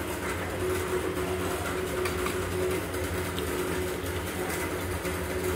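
Steady low machine hum with a constant tone above it, running unchanged throughout.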